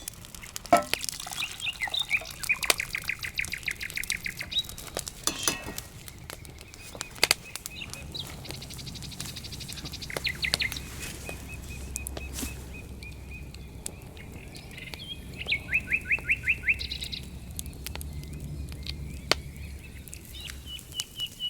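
Small forest songbirds singing fast trills of repeated high notes, several times over, one ending in a long rapid pulsing note near the end. Scattered sharp clicks and snaps sound between the songs.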